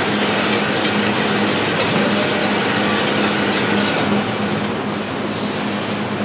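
Sack printing press running in a factory: loud, steady machine noise with a steady low hum underneath.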